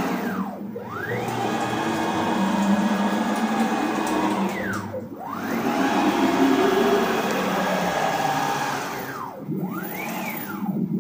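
Nema 23 stepper motors on DM542 drivers at 36 V whining as a home-built CNC router makes rapid free moves along its ball screws. The pitch rises as each move speeds up, holds steady, and falls as it slows to a stop, then rises again as the next move begins. Near the end come two short moves in quick succession, each a brief rise and fall in pitch.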